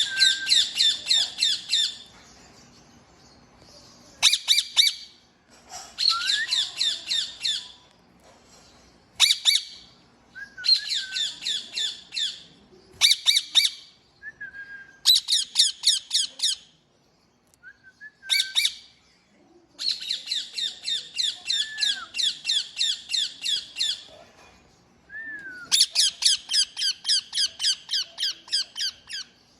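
Indian ringneck parakeet calling in bouts of rapid, harsh, repeated screeches, several a second, each bout opening with a short lower swooping note. The bouts last one to four seconds, with brief pauses between them.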